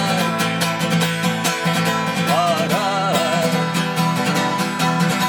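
Live song: an acoustic guitar strummed in a steady rhythm, with a man's singing voice over it in the middle.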